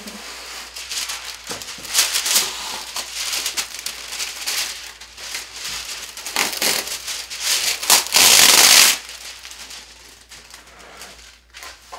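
Wax paper being pulled from its box and crinkled, a dense papery rustling with a louder rip lasting about a second around eight seconds in.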